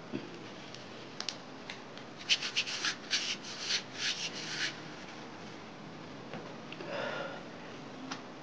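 Muslin waxing strip rubbed firmly over sugar wax on the underarm skin: a quick run of short, hissy rubbing strokes, after a few light clicks.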